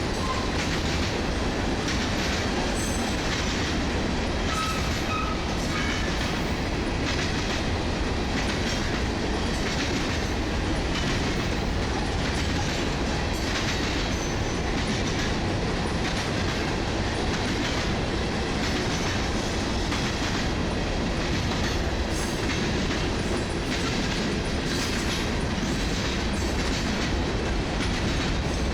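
Cars of the CSX manifest freight M603 rolling past in a steady run, wheels clicking irregularly over the rail joints, with a brief faint wheel squeal about five seconds in.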